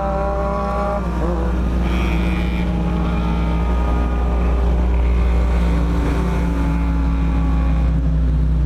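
Four-cylinder motorcycle engine running on the move, its note rising slowly as it pulls, twice over, with wind rumbling on the microphone.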